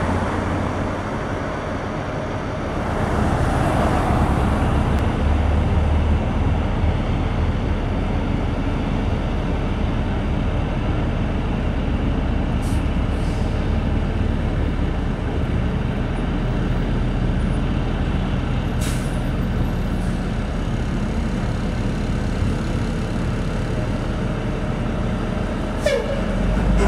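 Peterbilt heavy wrecker's diesel engine running with a steady low rumble. A burst of air hiss comes about three seconds in, shorter air-brake hisses follow a few times later, and there is a brief squeal near the end.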